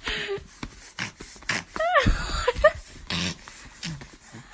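A baby making funny mouth noises: breathy puffs, clicking and smacking sounds, and a few short squeaky squeals that rise and fall in pitch about two seconds in.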